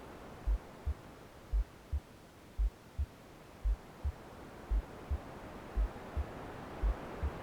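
Simulated womb soundscape: a slow heartbeat, each beat a deep lub-dub pair of thumps, about one beat a second, seven beats in all. Under it a soft white-noise hiss fades in the middle and swells again near the end.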